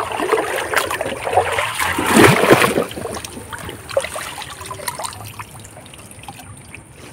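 Shallow river water trickling and splashing, with a louder bout of splashing about two seconds in before it settles to a quieter trickle.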